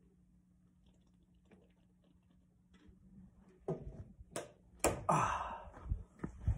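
Faint room hum, then a run of knocks and thumps with a second of rubbing as an acoustic guitar is handled close to the microphone. The loudest knock comes about five seconds in.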